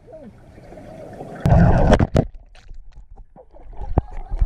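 Water splashing and sloshing, loudest in a burst about a second and a half in, with several sharp knocks.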